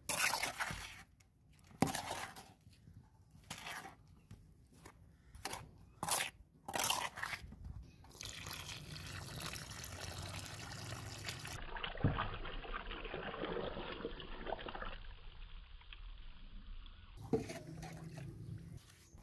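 A hand trowel scraping and turning dry cement mix in a mixing pan, in separate strokes, for the first eight seconds. Then water is poured onto the mix in a steady trickle for about nine seconds, and a few more trowel strokes follow near the end.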